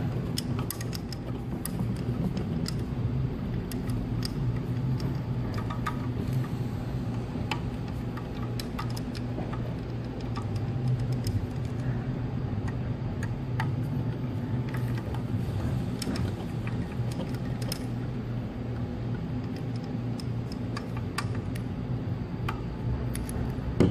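Scattered small metallic clicks and ticks of a hand screwdriver backing out the screws on the oxygen concentrator compressor's heads, with the loosened screws and parts being handled, over a steady low hum.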